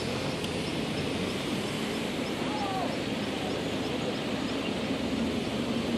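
Steady road traffic noise, with faint high ticking about three times a second over the first few seconds and one brief faint chirp near the middle.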